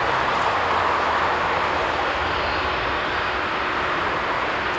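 Jet engine noise from an Airbus A321-231's IAE V2500 turbofans at low taxi thrust as the airliner rolls slowly toward the runway: a steady, even hiss with no rise in power.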